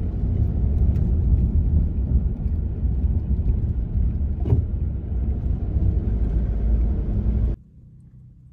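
A car driving along a road: steady low road and engine rumble, with a single knock about four and a half seconds in. The rumble cuts off suddenly near the end, leaving only faint car-cabin quiet.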